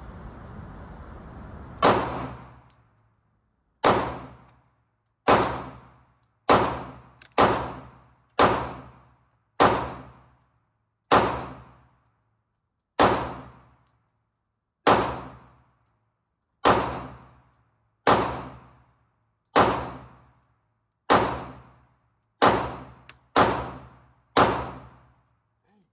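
Single aimed shots from a 9mm Glock pistol, about seventeen in all, fired one at a time at an uneven pace of roughly one every one to two seconds. Each is a sharp crack with a short fading ring. A steady hiss runs until the first shot, about two seconds in.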